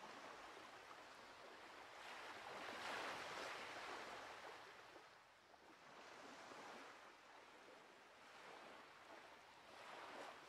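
Faint sea surf washing onto a flat beach, rising and falling, loudest about three seconds in.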